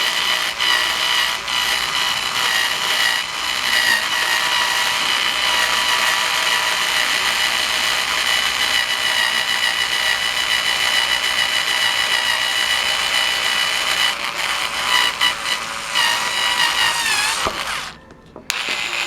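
Black & Decker battery power screwdriver, running on four fresh AA batteries, whirring steadily with a high whine as it drills into ABS plastic. Near the end its pitch wavers, it stops for a moment, then starts again.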